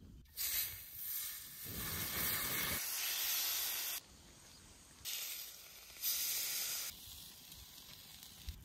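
Hot food sizzling with a steady hiss, in four stretches that each cut in and out abruptly; the longest lasts about two and a half seconds.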